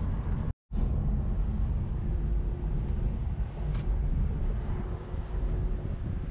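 Ford Mustang convertible driving with the top down: a steady low rumble of road and wind noise. The sound cuts out for a moment about half a second in.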